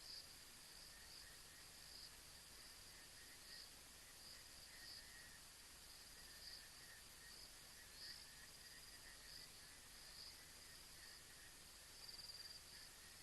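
Faint night insects, crickets, chirping steadily: a high trill with brighter chirps about once a second, and a fainter, lower chirping beneath it. A slightly louder run of chirps comes near the end.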